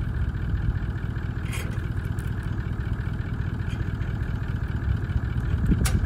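Toyota Land Cruiser engine idling steadily, with a couple of short knocks, the clearest near the end.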